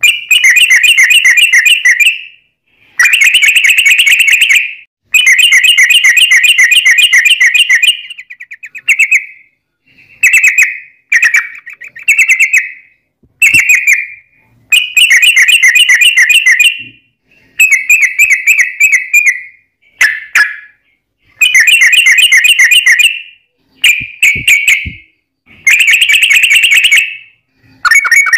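Yellow-vented bulbul song: loud, bubbly phrases of fast chattering trills, about a dozen bursts of one to two seconds each with short pauses between them.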